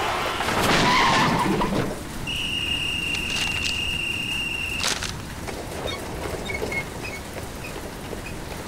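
Steady rain falling. In the first two seconds a vehicle sweeps past, the loudest sound; then a high, steady squeal holds for about two and a half seconds and cuts off with a click.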